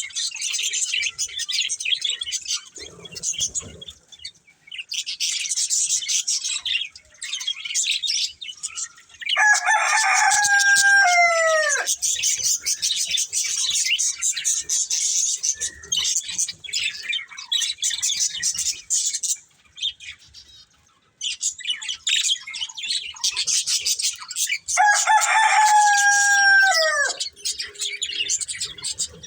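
Budgerigars chattering and warbling continuously in fast, high chirps. Twice, about ten seconds in and again near the end, a rooster crows: a long held note that falls away at the end, louder than the chatter.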